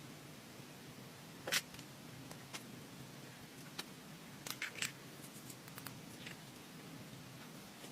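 Slime being handled and mixed, giving a few scattered sticky clicks and small pops, with a short cluster of them about halfway through.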